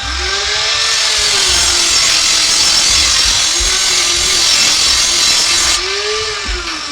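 A power tool running under load, giving a loud hissing grind with a whine that rises and falls twice.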